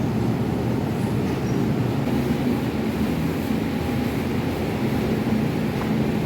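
Steady low rumble of running bakery machinery, with a faint steady hum above it.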